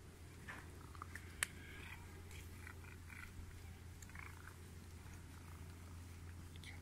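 A ginger street cat making a few faint, short sounds, with one sharp click about a second and a half in, over a steady low hum.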